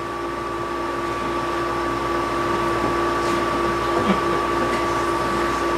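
A steady hum with two held tones, one low and one higher, slowly growing louder.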